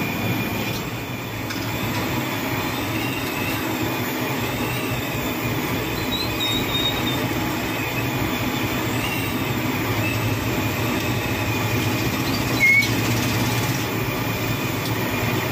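Sabudana vadas deep-frying in a kadhai of hot oil: a steady sizzling hiss, with one short metallic clink of the mesh skimmer near the end.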